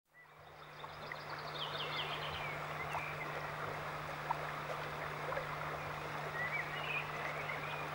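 Shallow river running fast, a steady rushing that fades in over the first second. A few short high chirps come about two seconds in and again near the end, over a steady low hum.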